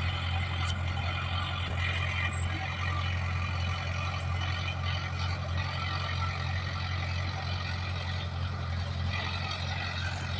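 Komatsu D20PL bulldozer's diesel engine running steadily with a constant low drone, mixed with a dense mechanical clatter.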